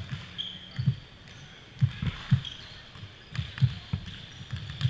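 Basketball bouncing on a hardwood gym floor: a series of uneven low thuds.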